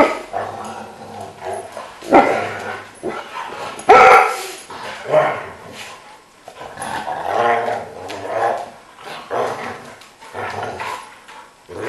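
Two dogs play-fighting, vocalising in short, loud barks and growls roughly every second.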